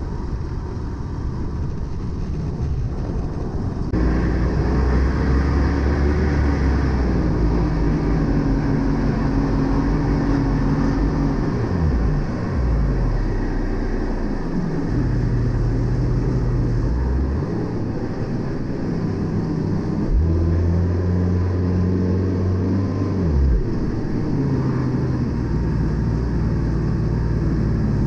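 Tecnam P2008's Rotax 912 flat-four engine and propeller droning steadily in cruise, heard from inside the cockpit. It gets louder about four seconds in.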